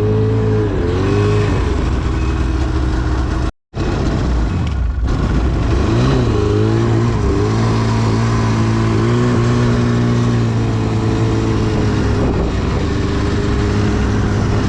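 2010 Arctic Cat CFR 1000's two-stroke twin engine running under throttle as the snowmobile is ridden, its pitch rising and falling with repeated blips of the throttle. The sound cuts out for a moment about three and a half seconds in.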